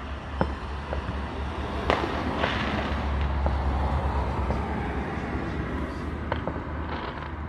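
Fireworks going off: scattered sharp bangs and crackles, the loudest about two seconds in, over a steady low rumble and hiss.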